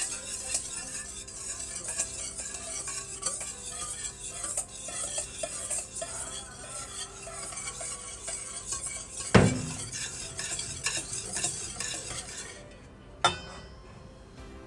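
Wire whisk beating eggs in a stainless steel bowl: fast, steady scraping and clinking of the wires against the metal. A loud knock comes about nine seconds in, the whisking stops near the end, and a second knock follows.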